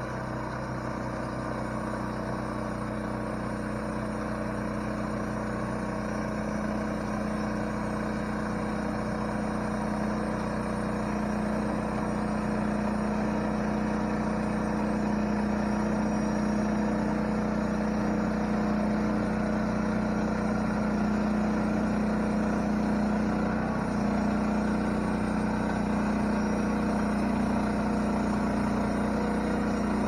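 Hudson Little Oscar walk-behind band sawmill's small engine running steadily under load as the band blade is pushed through a red oak log, sawing off an inch-thick board. The engine drone grows a little louder over the first half of the cut and then holds steady.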